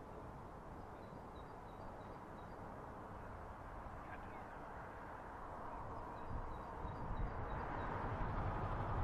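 Steady low hum of background road traffic, growing louder over the last few seconds. A small bird sings two short runs of quick, high chirps over it.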